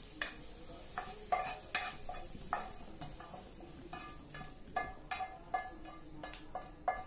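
Wooden spatula scraping and knocking sautéed vegetables out of a nonstick frying pan onto a steel plate: a run of short, irregular clicks and scrapes, some leaving a brief metallic ring.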